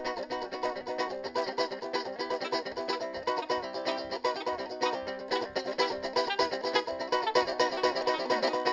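Banjo picking a carimbó melody in quick, even notes, with a saxophone playing along.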